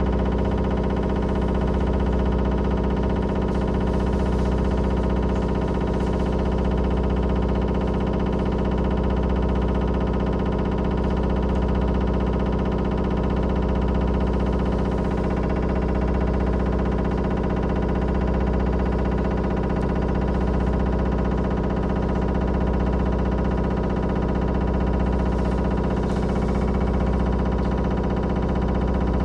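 Steady electrical hum inside a Bogdan T70117 trolleybus standing still: several fixed tones held level, with no rise or fall in pitch.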